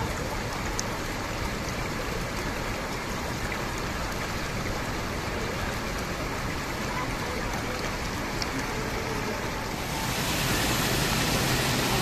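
Steady rush of flowing water. About ten seconds in, it changes to a louder, hissier rush of water pouring over a low stepped stone ledge.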